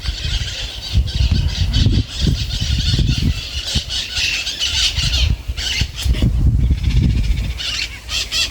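Wind buffeting the microphone in irregular low gusts, with a rough rustling hiss over it that breaks off briefly a few times.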